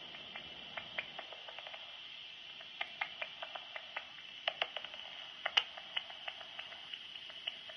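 Hand-held Pettersson Elektronik bat detector mixing a hunting bat's roughly 30 kHz echolocation calls down into audible clicks. The clicks are dry and irregular, bunched about three seconds in and again around five seconds, the loudest near five and a half seconds, over the detector's steady hiss.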